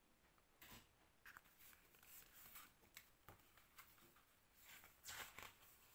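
Near silence with faint paper rustles and soft clicks from a hardcover picture book being handled and its page turned, a little louder about five seconds in.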